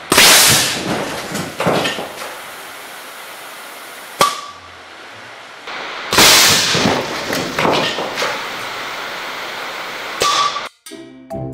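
Pneumatic air cannon at 8 bar firing a 1 kg concrete projectile into a pykrete block: a sudden loud blast and smash, then a couple of seconds of knocking and clattering debris. It is heard twice, about six seconds apart.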